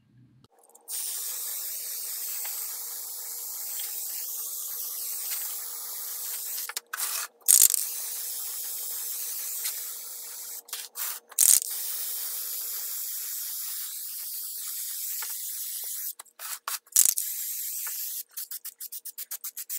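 Aerosol can of Plasti Dip rubber coating spraying in long steady hisses, broken a few times by short gaps with sharp loud bursts, then near the end in quick short puffs several a second.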